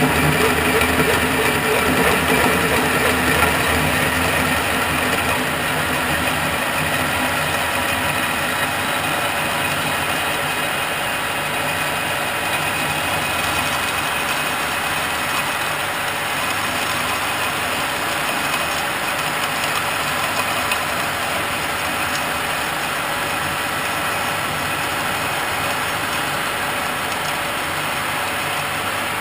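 Metal lathe running steadily with a hole saw turning in a lathe-mounted tube notcher, a little louder for the first few seconds.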